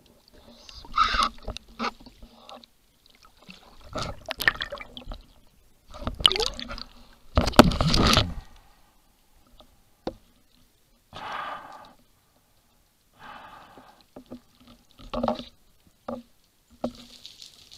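Water splashing and bubbling around an underwater camera as a freediver dives, in irregular bursts. The longest and loudest stretch is about halfway through, with quieter gurgles and bubbles later.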